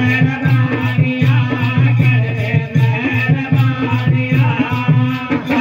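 Gurjar hari kirtan folk devotional music played live and amplified: a drum beats a quick, steady rhythm, about three or four strokes a second, under jingling percussion and a sustained melody.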